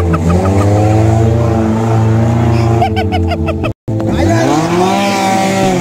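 Suzuki Jimny 4x4's engine revving under load on an off-road track, its pitch rising and falling. It drops out suddenly for a moment about four seconds in, then comes back with the revs falling away.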